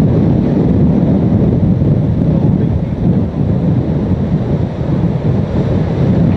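Hurricane-force wind blowing hard across the microphone: a loud, steady low rumble with no pauses.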